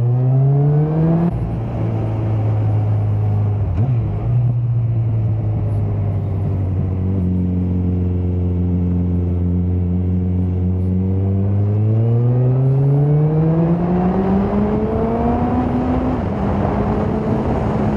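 Suzuki GSX650F's inline-four engine under way. Its pitch rises and drops sharply at an upshift about a second in, holds steady through a bend, then climbs steadily as the bike accelerates from about twelve seconds in, with another sharp drop at an upshift near the end.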